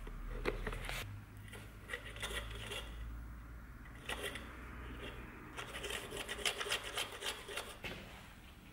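White wood glue squeezed from a plastic bottle onto the end of a beech axe handle and smeared by a fingertip: scattered small sticky clicks and rubbing, turning into a quick run of clicks in the last few seconds.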